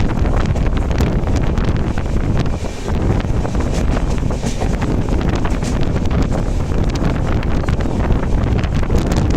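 An express passenger train running, a steady heavy rumble with irregular clicks and knocks through it, and wind buffeting the microphone.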